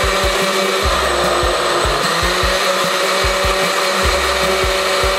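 A countertop blender running on frozen crushed pineapple and coconut milk: a steady motor whine with irregular low knocks underneath, stopping at the very end. The blender is struggling to break down the frozen pineapple chunks.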